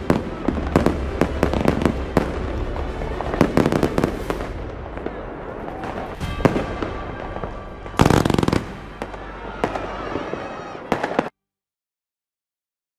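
Aerial fireworks bursting: a rapid run of sharp bangs and crackles that thins out, with one loud burst about eight seconds in. The sound cuts off abruptly near the end, leaving silence.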